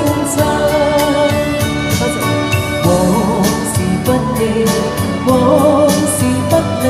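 A woman singing a slow pop song into a handheld microphone over an amplified backing track with a steady beat.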